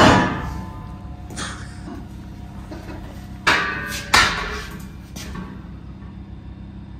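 Heavy welded steel plate bracket clanking against metal as it is handled: a sharp ringing clank at the start, a lighter knock about a second and a half in, and two more ringing clanks around three and a half and four seconds in.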